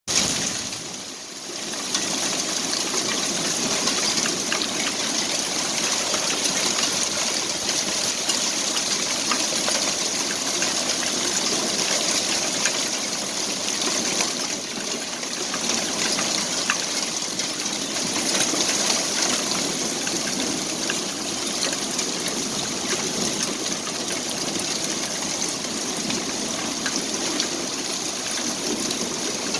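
Heavy rain mixed with hail coming down hard: a steady hiss with many small sharp ticks of hailstones striking.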